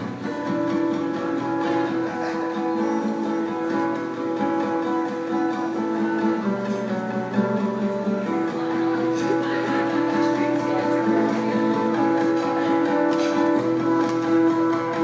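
Acoustic guitar strumming an instrumental passage between sung lines, with the chords changing every few seconds.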